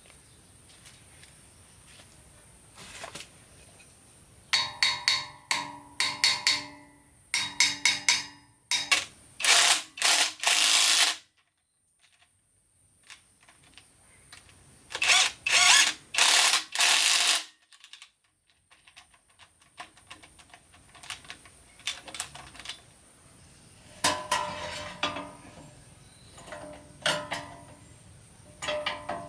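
Hand tools working on metal truck parts: bursts of rapid clicking and knocking, separated by short pauses.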